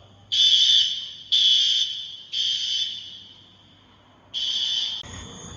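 System Sensor SpectrAlert Advanced fire alarm horn blaring in the temporal-three evacuation pattern: three short, high-pitched blasts about a second apart, a pause, then the next cycle starting near the end. Crickets chirp steadily as the last blast stops.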